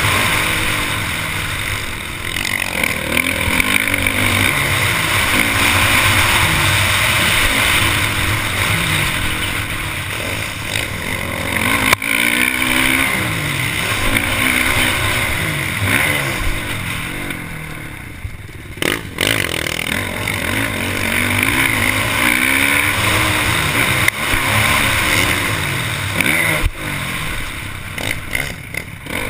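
Motocross bike engine on the track, revving up through the gears and dropping back again and again, with a heavy wind rush over the bike-mounted microphone. It backs off briefly a little past halfway.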